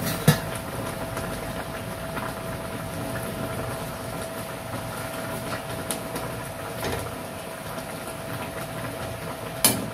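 Vinegar broth boiling steadily in a pan of fish, with a steady hum behind it. A clink as the glass lid is lifted just after the start, and a short knock near the end.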